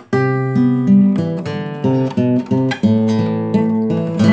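Acoustic classical guitar played as a song's intro, starting suddenly and going on with chords and picked notes, a fresh attack roughly every half second.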